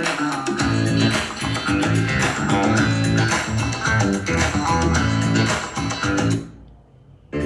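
Guitar-led music with a prominent bass line, played back through a portable speaker for a sound test. The music drops away about six and a half seconds in and starts again just before the end.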